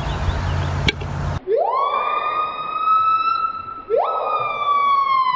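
A bird whistling an imitation of a siren: two wails, each swooping quickly up and then held, the second sliding back down near the end. Before it, about a second of noisy background with a low hum cuts off abruptly.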